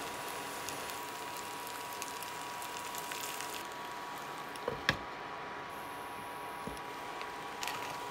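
Potatoes frying in oil and butter in a pan, a steady sizzling hiss with a faint steady high tone under it, broken by a couple of sharp knocks about five seconds in and a few light clicks near the end.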